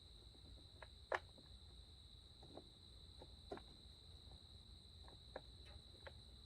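Near silence: a few faint small clicks and taps from handling small plastic parts, the sharpest about a second in, over a steady high-pitched whine.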